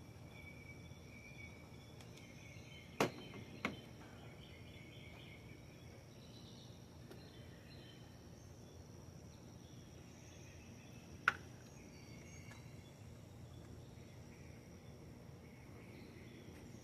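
Quiet background with faint insect chirping, broken by three sharp taps: two close together a few seconds in, and one more about two-thirds of the way through.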